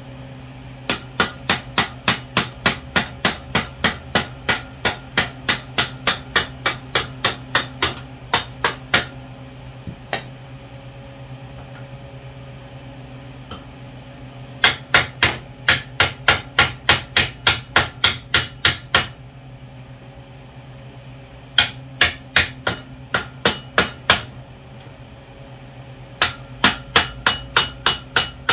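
Hammer blows on a spare axle used as a drift, driving a stuck rear axle out of a dirt bike: sharp metal-on-metal strikes about three a second. They come in four runs with short pauses between.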